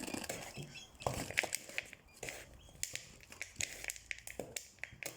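A packet of chocolate chips crinkling as it is handled, with scattered light clicks and taps.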